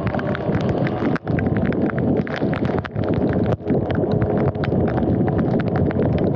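Electric dirt bike ridden on a wet road: steady wind rush and tyre noise on the camera's microphone, peppered with rapid, irregular ticks of water spattering.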